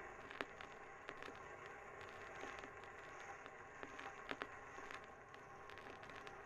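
Faint steady hiss with irregular sharp clicks and crackles scattered through it.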